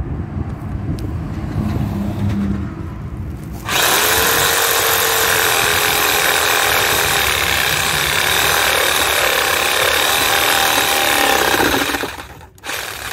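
Corded Hyper Touch 6.5 amp reciprocating saw with a wood blade cutting through a birch log. After a few seconds of low background rumble, the saw starts suddenly, runs steadily at full speed for about eight seconds, then stops near the end.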